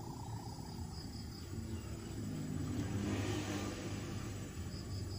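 Outdoor background sound: insects chirping in short, high, pulsing trills near the start and again near the end, over a steady low rumble that swells a little in the middle.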